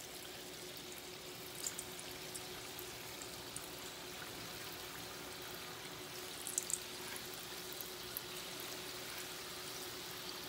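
Moong dal batter balls deep-frying in oil at medium heat, a steady sizzle with a few short crackles, the sharpest about a second and a half in and around six and a half seconds, as more batter drops into the oil.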